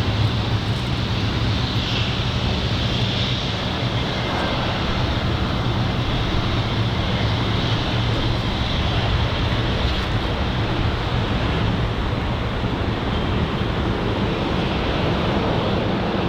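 Airbus A320neo jet engines running steadily as the airliner lands: a continuous low rumble with a higher whine above it.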